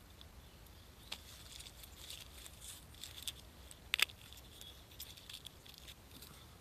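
Faint rustling and scattered light clicks as a mushroom is handled among dry leaf litter, with a sharper click about four seconds in.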